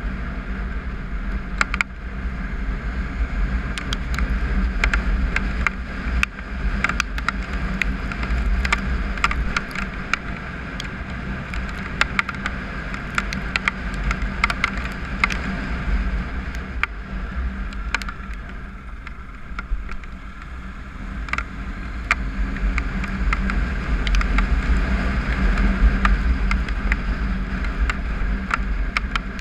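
Triumph Tiger 955i's inline-three engine running at road speed on a gravel road, heard from a bike-mounted camera with a deep rumble of wind and tyre noise and scattered sharp clicks. It eases off briefly about two-thirds of the way through, then picks up again.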